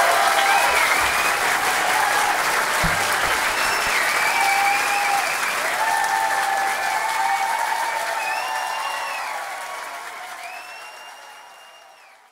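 Concert audience applauding and cheering at the end of a live song. The applause fades out over the last few seconds.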